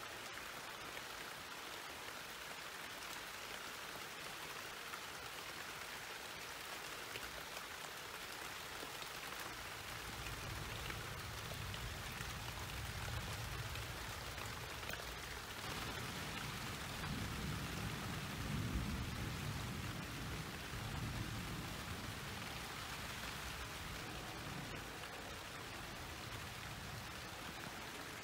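Steady rain falling during a storm, with a long low rumble of thunder that builds about a third of the way in, is strongest just past the middle, and dies away.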